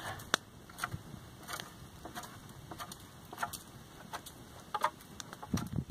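Knife shaving bark and wood from a green spruce pole: short separate scraping strokes and clicks, about one a second, with a duller knock near the end.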